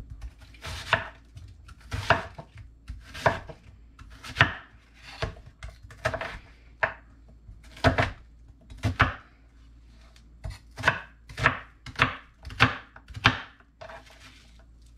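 Chef's knife chopping a white onion on a wooden cutting board: a series of sharp knife strokes through the onion onto the board, about one a second, quickening to about two a second after ten seconds in.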